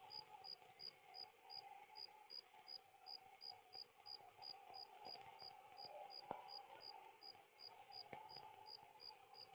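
Faint cricket chirping: an even run of short, high chirps about three a second, over a faint steady drone.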